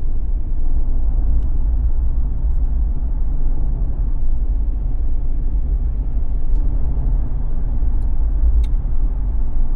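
Steady low rumble of engine and road noise inside a Jeep's cabin, with its BFGoodrich KO3 all-terrain tyres running on the road at cruising speed.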